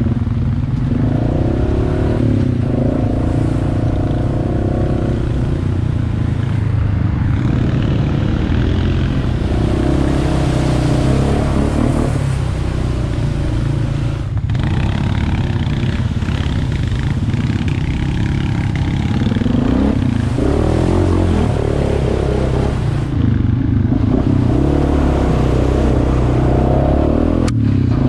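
Honda utility ATV's single-cylinder four-stroke engine running under riding load, its pitch rising and falling as the throttle is worked on and off.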